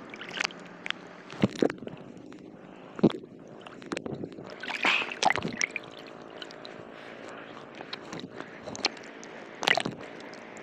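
Sea water sloshing and gurgling around a phone dipped at and under the surface, with irregular splashes and knocks against the microphone.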